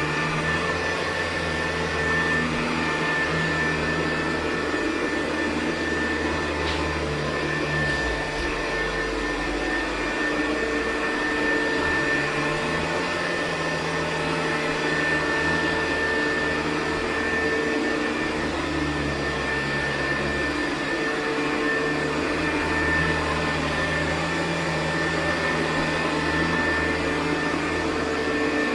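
Hoover U4007 upright vacuum cleaner running with its 4-row brushroll on carpet: a steady motor whine over a low drone that shifts now and then as it is worked.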